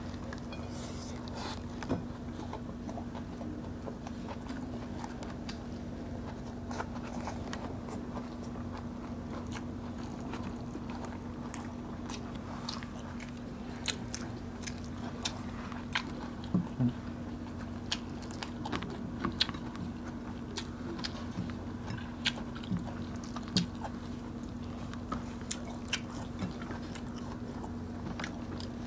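Close-miked chewing and mouth sounds of people eating grilled yellowfin tuna and rice by hand, with many small sharp smacks and clicks scattered through, busier in the second half. A steady low hum runs underneath.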